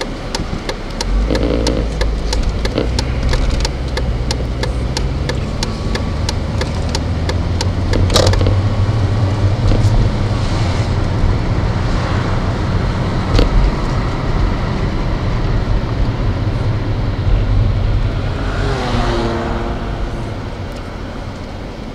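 Car cabin noise on the move: steady low engine and road rumble that grows fuller about eight seconds in. A run of quick, regular ticks sounds over the first several seconds, and two sharp clicks come at about eight and thirteen seconds.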